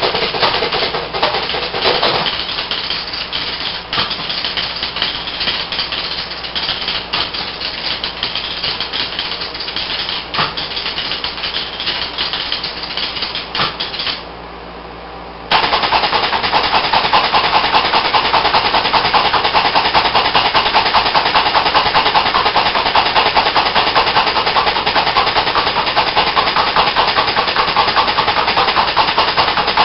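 Electromechanical bingo pinball machine's relays and stepper units clicking rapidly and irregularly. After a short quieter pause about halfway, a steady, very fast mechanical chatter of the machine's motor-driven mechanism starts and runs on.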